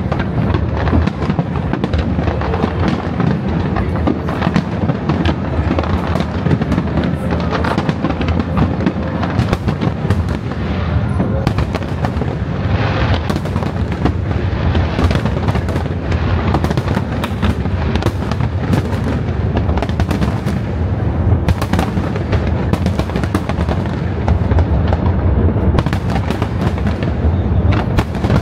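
Large harbour fireworks display: a dense, continuous barrage of bangs and crackles from shells bursting overhead, with music playing underneath.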